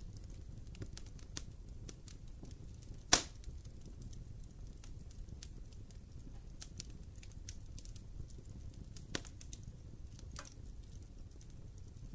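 Fire burning in a fireplace, crackling: scattered sharp snaps over a low steady rumble of flame, with one loud pop about three seconds in and a smaller one near nine seconds.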